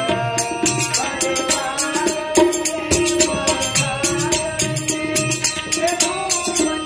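Live Indian folk-style devotional music: a voice singing over a drum and jingling hand percussion that keep a quick, steady beat.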